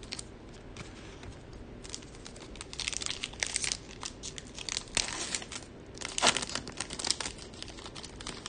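Foil wrapper of a Panini Contenders football card pack being torn open and crinkled by hand, in crackling bursts that are loudest about six seconds in.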